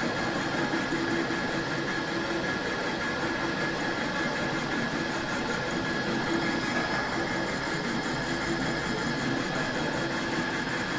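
Metal lathe running steadily during thread cutting: an even mechanical hum from the spindle and gear train, with a constant high whine over it.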